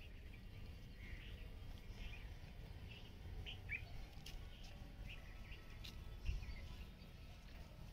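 Small birds chirping in short, scattered calls, some sliding down in pitch, over a steady low rumble with a few faint clicks.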